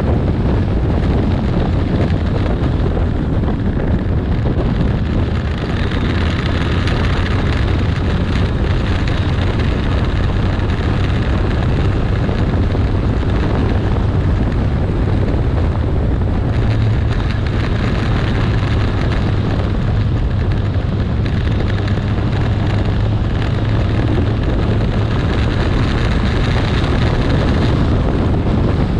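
Motorcycle riding at road speed: heavy wind noise on the microphone over the steady running of the Kawasaki 1400 Concours's inline-four engine, whose low note gets a little stronger about halfway through.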